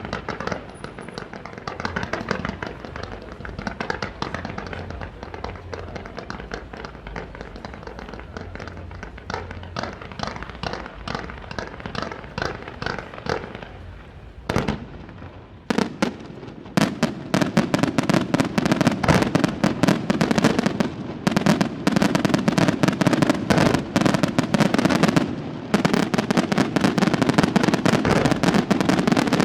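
Aerial fireworks display: a dense stream of crackling and bangs, a brief lull about halfway, then a louder, faster barrage of sharp reports, many a second.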